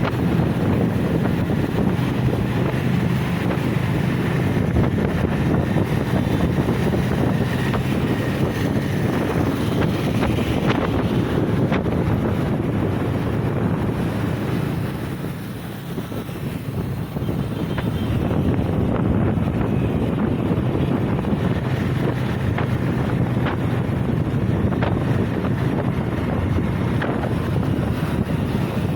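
Wind rushing over the microphone of a moving motorcycle, likely the TVS Apache RTR, with its engine running steadily underneath. The noise eases off briefly about halfway through, then picks up again.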